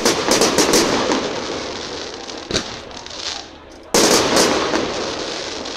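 Fireworks display: aerial shells bursting in quick volleys of sharp bangs, one right at the start and another about four seconds in, with a single bang in between, each volley trailing off slowly.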